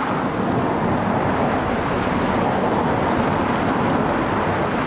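Road traffic noise: a steady rush of vehicle engines and tyres passing nearby.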